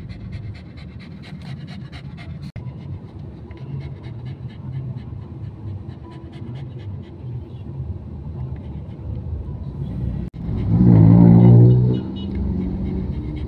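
A dog panting quickly over the steady low rumble of a car's cabin. Near the end a loud, held low tone lasts about a second and a half.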